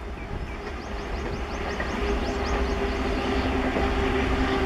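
Passenger train coaches running on the rails, a low rumble of wheels on track. About two seconds in, a steady hum comes in, and the sound grows louder through the end.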